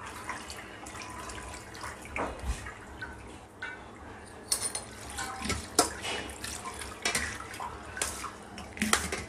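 Cold water poured from a metal tumbler over diced canned fruit in a stainless steel colander, splashing and draining through the holes as the fruit is rinsed of its syrup, with scattered light knocks and clicks.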